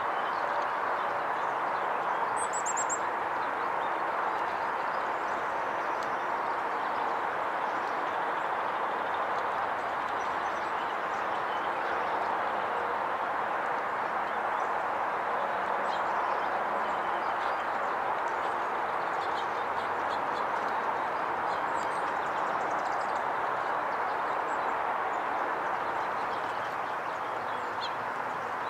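Steady, even rushing background noise with no clear source, with a brief high-pitched bird chirp about two and a half seconds in and a few faint bird notes later.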